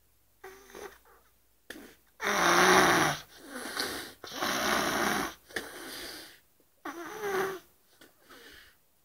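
A sleeping woman snoring: a run of raspy snores and breaths, the loudest about two seconds in, fading to a faint one near the end.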